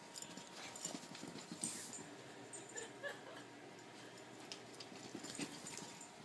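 A corgi moving about: faint, scattered light taps and clicks.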